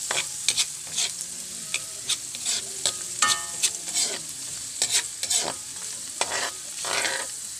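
Minced garlic sizzling in oil in a metal wok, with a metal ladle scraping and clinking against the pan as it is stirred.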